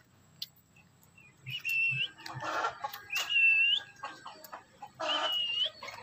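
Black-capped lory calling: three short whistled notes, each turning up slightly at the end, mixed with harsh squawks.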